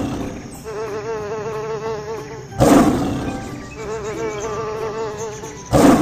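Lion roars played as a sound effect, three of them about three seconds apart, with a wavering hum between the roars.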